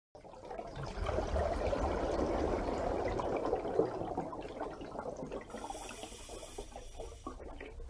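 Water bubbling and trickling steadily, with a brief high shimmering tone over it a little past the middle.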